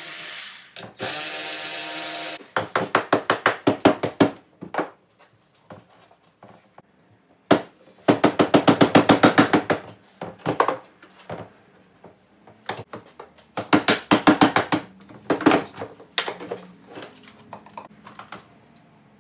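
Cordless power tool working on a transaxle case: a steady motor whir for the first couple of seconds, then several short runs of rapid rattling clicks, about nine a second, with pauses between them.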